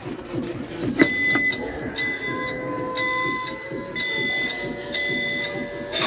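An electronic alarm beeping about once a second, each beep about half a second long at one steady high pitch. A sharp click comes as the beeping starts about a second in.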